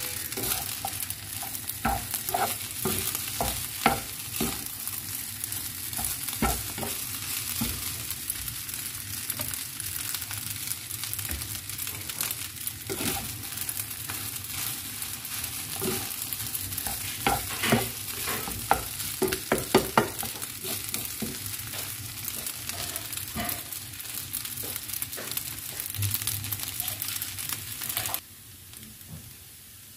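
Fried rice sizzling in a pan while a spatula stirs it, with frequent scrapes and taps against the pan. The sizzling cuts off suddenly near the end.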